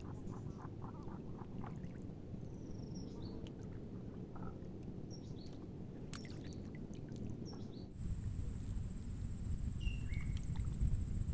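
Quiet open-air lakeside ambience: a steady low rumble with a few short, high bird chirps scattered through, one falling call near the end, and a couple of faint clicks.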